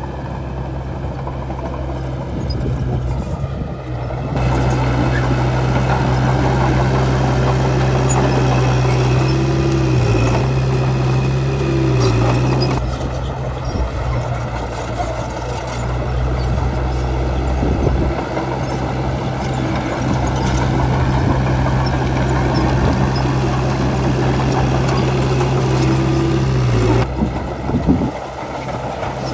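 Bulldozer's diesel engine running steadily. It revs up about four seconds in, dips briefly twice, and drops back near the end.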